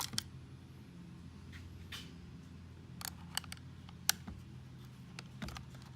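Small plastic clicks and handling sounds as a door lock actuator's cable is worked into its plastic housing: a few scattered sharp clicks over a faint steady low hum.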